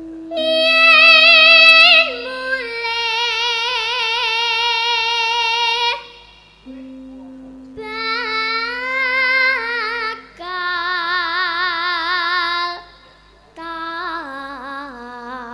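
A young girl sinden (Javanese female vocalist) singing solo in long, ornamented phrases with a strong vibrato, broken by short pauses. A low steady held note sounds beneath her at times.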